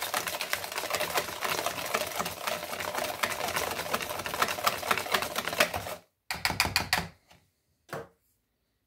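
Wire whisk beating a thick egg-yolk batter by hand in a mixing bowl: fast, rapid clicking and rattling of the wires against the bowl. It stops about six seconds in, with two short rattles after.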